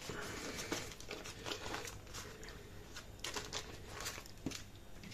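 Baking parchment rustling and crinkling in faint, irregular little bursts as it is used to fold a sheet of puff pastry over a meat filling and then peeled back from the dough.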